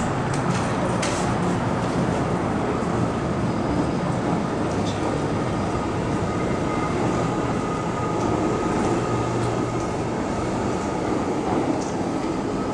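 MTR Island Line M-Train electric multiple unit running through an underground station without stopping, heard behind the platform screen doors as a steady rumble and rush.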